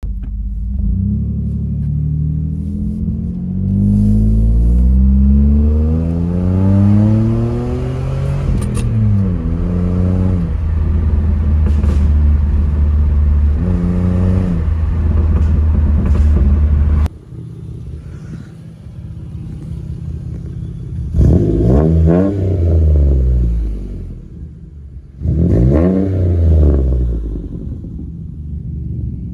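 Pontiac G6 GT's 3.5-litre V6 exhaust being revved: several rising revs and blips, a held high rev that drops back to idle about halfway through, then two quick revs from idle near the end.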